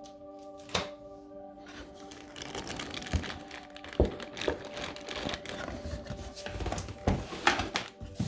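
Background music with held notes, under handling noises from about two and a half seconds in: irregular sharp knocks, clicks and crinkling of packaging being unpacked.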